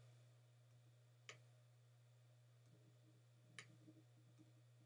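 Near silence over a low steady hum, with two faint computer mouse clicks: one a little over a second in, the other about two seconds later.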